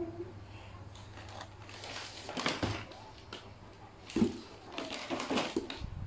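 Cardboard and plastic toy packaging being handled: irregular rustling and scraping, with a sharp thump about four seconds in.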